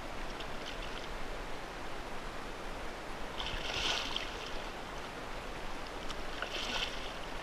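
Hooked black drum thrashing at the surface beside a kayak, splashing in two bursts, about three and a half and about six and a half seconds in, over a steady hiss of wind and water.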